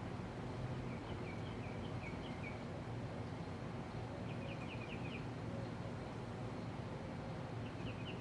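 Fasco World's Fair model 962CB ceiling fan running with a steady low hum. A small bird chirps in three quick runs of notes in the background.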